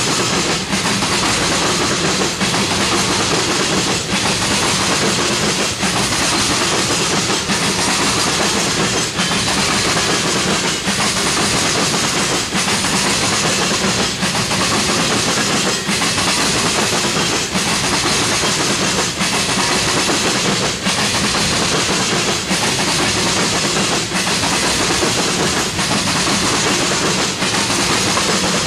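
Railroad tank cars of an oil train rolling past close by. Steel wheels run on the rail in a steady, loud rush, with a faint click about every second and a half to two seconds as the wheel sets pass over rail joints.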